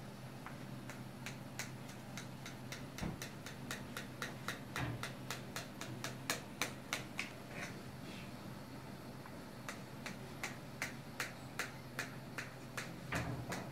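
Knife sawing through a cake, its blade clicking and tapping against the metal baking tray in a long series of quick sharp ticks, about two or three a second.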